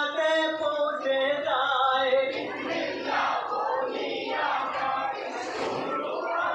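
Bengali marsiya, a Muharram elegy, sung by a lead male voice through a microphone with a crowd of boys joining in chorus. The first couple of seconds carry the singer's drawn-out notes; after that the many voices blur into a loud group chant.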